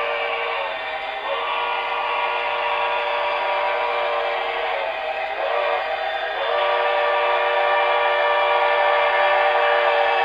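Steam-whistle chord from the Paragon 4 sound system of an HO-scale Broadway Limited PRR S-2 turbine locomotive, blown in long blasts with breaks about a second in and around five seconds in, over a steady hiss.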